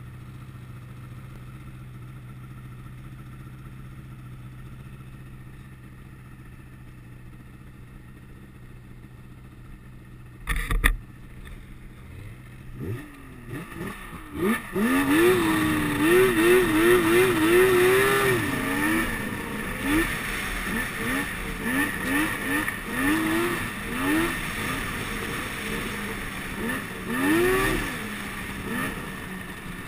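Snowmobile engine idling with a low steady hum, then a single sharp knock about ten seconds in. After that the throttle opens and the sled pulls away, the engine much louder, its pitch rising and falling again and again as the throttle is worked while riding.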